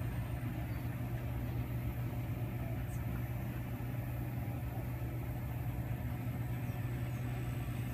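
A steady low mechanical hum, like an engine idling, holding an even level throughout.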